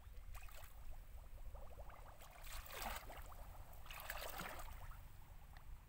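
Faint splashing of feet wading through shallow muddy water, about three slow steps, over a low steady rumble.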